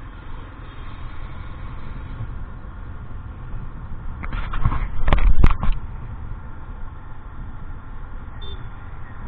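Steady low rumble of street traffic, with a louder noisy burst and two sharp clicks about five seconds in.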